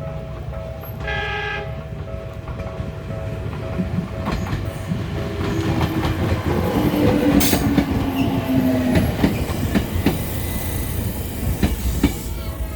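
Level-crossing bell ringing as a Bessho Line 6000-series electric train approaches; the train gives a short horn blast about a second in. The train then passes close by, its wheels clacking over the rail joints, loudest near the middle, with a low motor hum sliding slightly lower. The crossing bell is heard again as the last cars clear.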